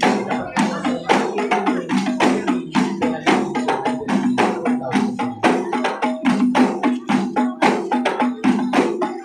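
Terbangan frame drums (rebana) beaten by hand in a fast, steady rhythm, several strokes a second, the ensemble accompanying a kuntau martial-arts performance.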